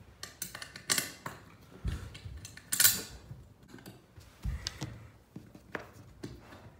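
Hand assembly of a metal-framed dog cot: sharp clicks and clinks of metal frame parts being fitted together, the loudest about three seconds in, with a few dull knocks against the wooden floor.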